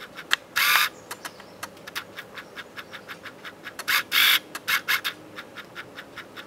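A cardboard product box handled in the hands: two louder scraping rustles, one just under a second in and one about four seconds in, over a steady run of small quick clicks.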